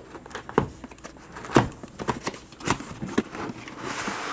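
A small cardboard product box being handled and opened: several short taps and knocks, then a longer scraping rustle near the end as the packaging slides against cardboard.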